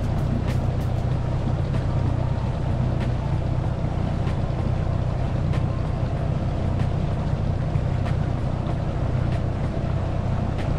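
Small dinghy outboard motor running at a steady speed while under way, with water rushing along the hull and scattered light ticks.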